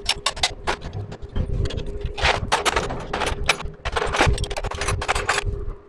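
Metal tools and bolts clinking and scraping while an engine is fastened into a motorcycle frame: quick, irregular metallic clinks, over a steady faint hum.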